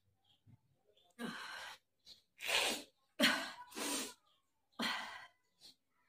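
A woman breathing forcefully through her nose over a bowl of red chilli powder: five loud, noisy nasal breaths, the first a steady one lasting over half a second about a second in, then four shorter ones.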